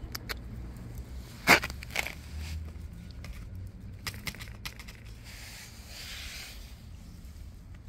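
Handling noises from a metal can of wet cat food being tipped out onto a paper plate: a sharp knock about a second and a half in, a few lighter clicks around four seconds, then a brief scraping rustle.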